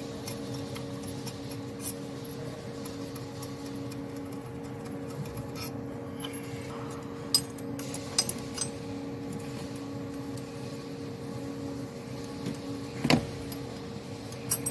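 Scattered metal clicks and clinks of a hand tool on engine fittings as the fuel rail and high-pressure fuel pump are loosened, with a sharper knock near the end. A steady low hum runs underneath.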